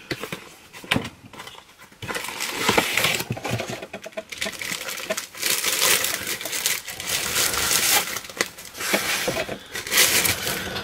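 Packaging crinkling and rustling as an item is unwrapped and pulled from a box by hand, a few light knocks first, then near-continuous crinkling from about two seconds in.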